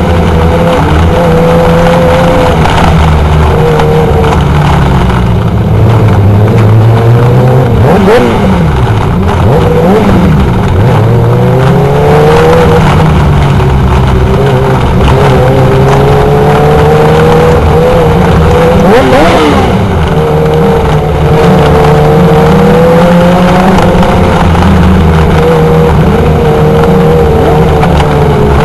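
Several micro sprint car engines running close by, steady with throttle blips. Now and then a car revs or passes, its pitch sweeping up and down.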